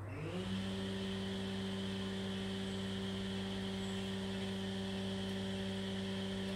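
Electric motor of a benchtop power tool switched on, spinning up in about half a second, then running with a steady hum.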